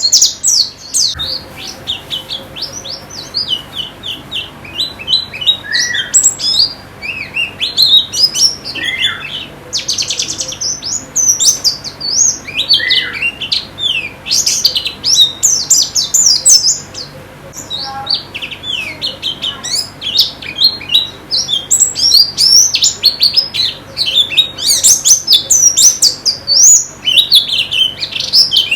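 White-eyes (pleci) singing: quick, high twittering phrases one after another with hardly a break, with a few lower slurred whistles mixed in.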